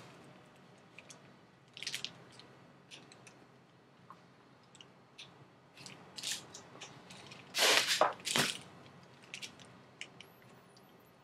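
Hand staple gun firing twice in quick succession about eight seconds in, stapling a stretchy fabric cover to the underside of a bike saddle. Quieter rustling and small clicks of fabric being pulled and tucked come before and after.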